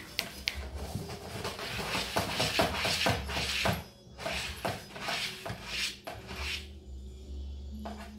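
A tabby cat shifting and rolling over inside a cardboard box, its body scraping and rustling against the cardboard in several rasping bursts that die down near the end.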